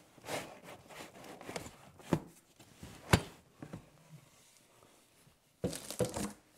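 Packing foam being pulled and worked out of a cardboard printer box by hand: rustling and scraping, two sharp knocks about two and three seconds in, and another short burst of scraping near the end.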